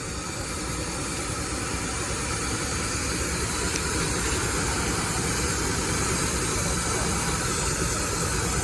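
75 HP Case steam traction engine running a sawmill: a steady steam hiss over a low rumble that slowly grows louder.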